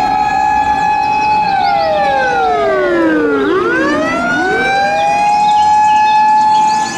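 Siren of a Japanese Hino fire engine responding to a call, wailing: a long tone held high, sliding slowly down about halfway through and rising back up to hold high again. Two siren tones run slightly out of step.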